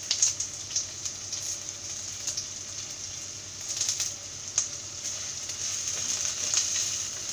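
Sliced onion, ginger, garlic and dried red chillies sizzling in coconut oil in a clay pot, with scattered sharp crackles as curry leaves go into the hot oil. A wooden spatula stirs the pot near the end.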